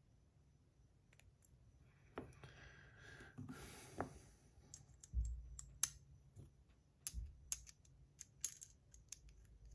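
Faint handling of a titanium fidget spinner as its buttons are fitted back on: scattered light clicks and taps, with a few soft thumps.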